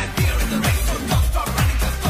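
Electronic dance music with a fast, steady beat of heavy bass drum hits, each falling in pitch, about two and a half hits a second.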